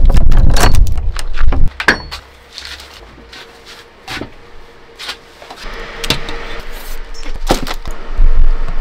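Keys and a padlock rattling on a metal door, with loud low rumbling and clatter in the first second and a half. Scattered clicks and knocks follow over a faint steady hum, with another loud low rumble near the end.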